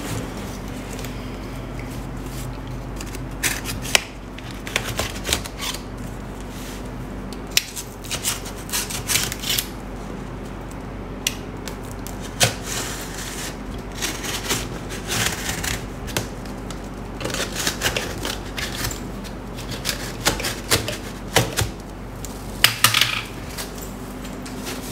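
Packing tape being picked at and peeled off a cardboard box: irregular scratches, clicks and rustles of tape and cardboard. Near the end the box's cardboard flaps are pulled open.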